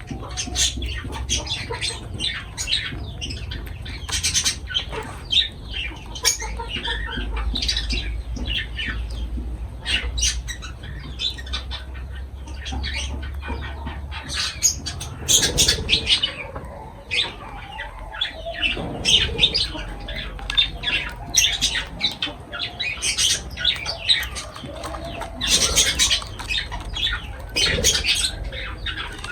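Lovebirds chattering: a constant stream of short, shrill squawks and chirps.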